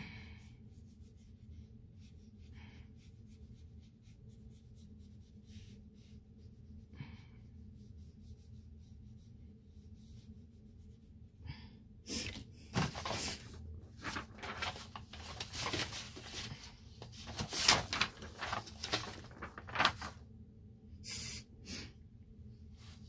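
A faint steady hum with occasional soft clicks, then, about halfway through, a run of loud rustling and scraping strokes that eases off near the end.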